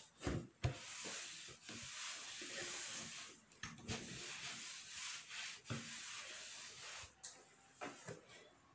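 Steady rubbing and scraping, with a few light knocks along the way.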